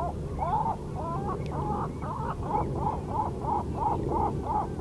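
A seabird calling in a rapid run of short, arching calls, about four a second, over the steady low wash of small waves lapping against rocks.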